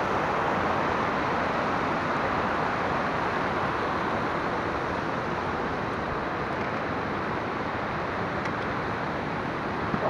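Glacial meltwater cascade rushing over boulders, a steady loud rush of white water that eases slightly toward the end.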